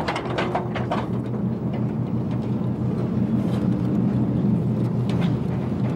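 A steady low engine-like drone, with a few sharp clicks in the first second.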